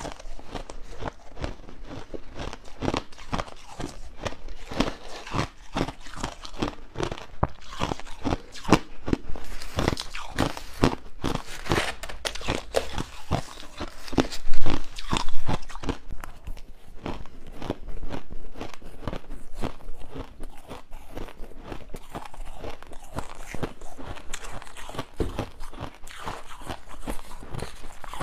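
Crushed ice being chewed close to a lapel microphone: a steady run of crisp crunches. A metal spoon scoops and scrapes ice in a stainless-steel pot between bites, and the crunching is loudest about halfway through.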